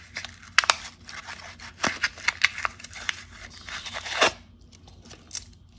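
Paper wrapper on a roll of half-dollar coins being torn and crinkled open by hand: a run of sharp rips and crackles that thins out after about four seconds.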